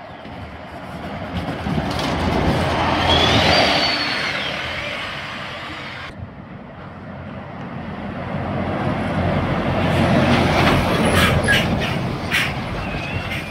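A single-deck bus and then a box lorry drive over the level crossing, each one rising and falling as it passes. A brief high squeal comes as the bus goes by, and a few sharp clanks come from the lorry. Right at the end the crossing's two-tone warning alarm starts to sound.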